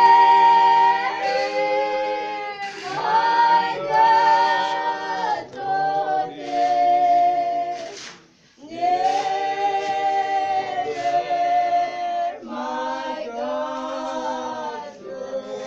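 Slow unaccompanied singing by a group of voices, long held notes in phrases, with a pause for breath about eight and a half seconds in.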